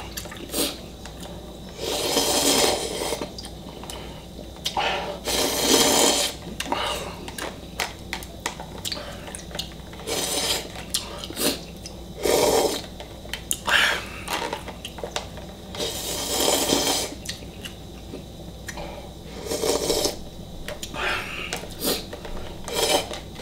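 A person slurping Shin Ramyun noodles and broth from a foam bowl, in repeated loud slurps about a second long, with small clicks and chewing between them.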